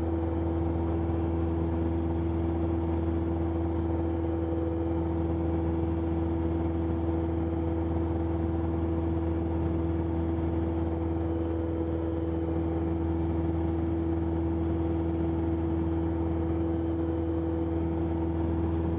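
Cessna 172's piston engine and propeller droning steadily in flight, at an unchanging pitch and level.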